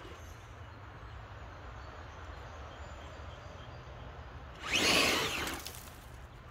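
Electric motor and drivetrain of a 1:10 RC scale crawler revving in one short burst of about a second, pitch rising then falling, as it climbs a steep dirt step. A steady low rumble runs underneath.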